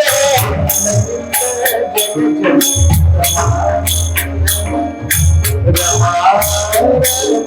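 Devotional music: a melody over a steady low drone, with bright metallic jingling strikes keeping a regular beat.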